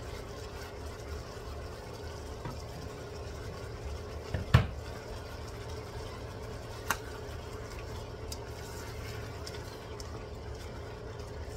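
Squid and long beans sizzling steadily in a wok, just after a splash of soy sauce. A spatula knocks sharply against the wok about four and a half seconds in, and more lightly a couple of seconds later.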